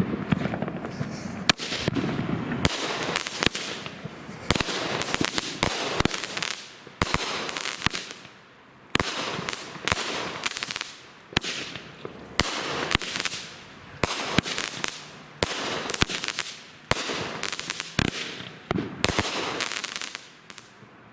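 A 16-shot 200-gram consumer repeater cake firing in sequence, about one shot a second; each shot a sharp bang followed by a hissing, crackling tail that fades. The cake shoots flaming balls that end in loud reports.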